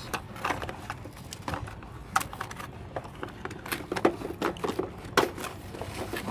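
Hands working a plastic toy truck free of its cardboard packaging base: irregular clicks, knocks and scrapes of plastic and cardboard.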